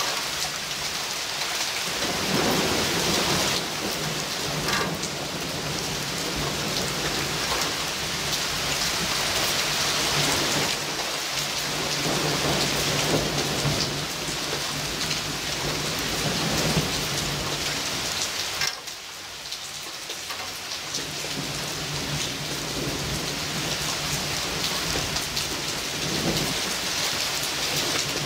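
Heavy thunderstorm rain pouring steadily, with thunder rumbling underneath. The downpour eases briefly a little past halfway, then picks up again.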